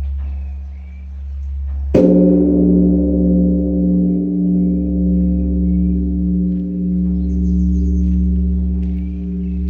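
A large bronze Korean temple bell (beomjong) is struck once about two seconds in. The low hum of the stroke before is still ringing when it sounds. The new stroke rings on long with a deep, slowly throbbing hum. Small birds chirp faintly.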